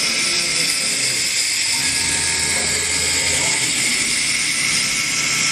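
Acctek AKM6090C CNC router's spindle running steadily while cutting wood: an even high hiss with a faint steady whine.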